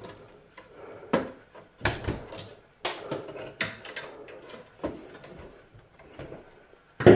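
Clicks and knocks of metal and plastic as a desktop PC is taken apart with a screwdriver at the card slots. Several separate sharp knocks come a second or so apart, with a louder one at the very end.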